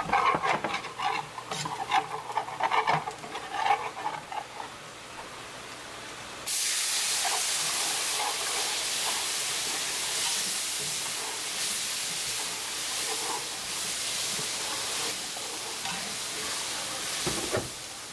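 A utensil stirring and scraping through a bubbling gravy base in a hot skillet, over a light sizzle. About six and a half seconds in, a sudden loud, steady sizzling hiss begins as milk is poured into the hot pan and whisked in.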